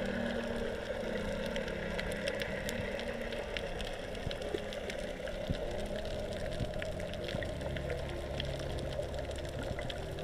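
Underwater ambience picked up by a diving camera over a coral reef. A steady watery hiss runs throughout, with many scattered sharp clicks, and low held tones that shift in pitch a few times.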